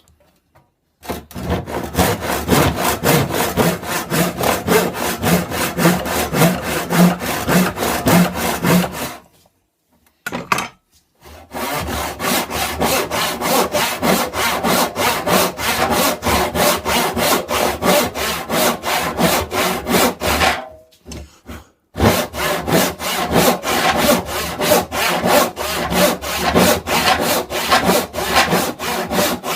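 Hand saw cutting through wood in quick, even back-and-forth strokes. It runs in three bouts, with short pauses about nine and twenty-one seconds in.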